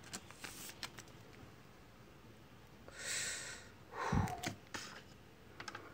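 Quiet handling of a clear plastic card sleeve with a few faint ticks, then two short breaths near the microphone about three and four seconds in.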